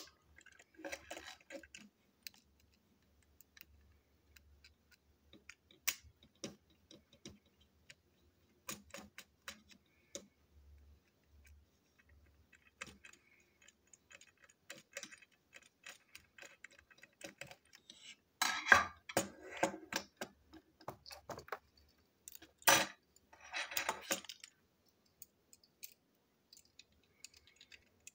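Small clicks, taps and rattles of a plastic toy train engine's parts and a small screwdriver being handled during disassembly. Scattered light ticks, a denser clatter about two-thirds of the way through, then a single sharp knock and a short rattle.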